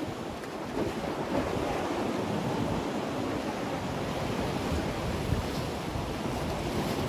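Sea waves washing and breaking against the rocks and concrete blocks of a breakwater, with wind buffeting the microphone.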